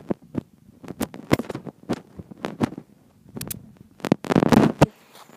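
Footsteps on wood chips and dry grass, about two steps a second, with knocks and rubbing from the hand-held iPad against its microphone; a loud half-second burst of rubbing comes about four seconds in.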